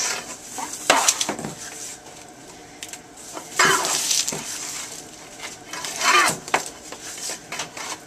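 Green rubber garden hose being hand-coiled onto a wooden reel, its length dragging and scraping against the coils and the wood in a few long swishes.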